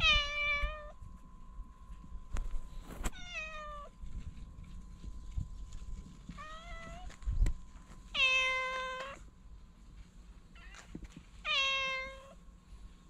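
A cat meowing five times, a few seconds apart, each call lasting about a second.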